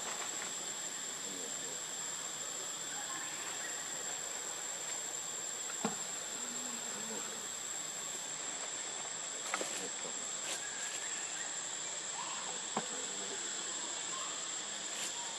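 Insects droning steadily in the forest: an unbroken high-pitched buzz over a hiss, with a few faint ticks along the way.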